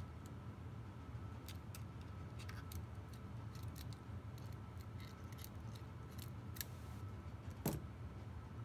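Scattered light metallic clicks and ticks of hand tools being handled, a pair of pliers and a small screwdriver bit, with one sharper click about three-quarters of the way through, over a low steady hum.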